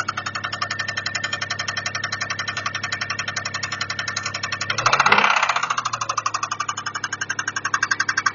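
Toyota 1MZ-FE V6 engine idling with a rapid, even knock, blipped briefly about five seconds in before settling back to idle. The owner is unsure whether the knock comes from a worn bearing shell or from the valves.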